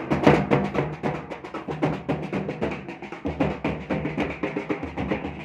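Band drums, snare drums and a bass drum, played together in a fast, steady beat of several strikes a second.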